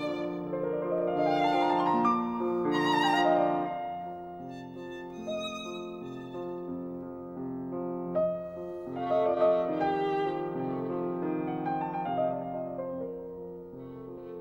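Background music: a slow, melodic piece with a violin carrying the tune over piano accompaniment, notes rising and falling in swells.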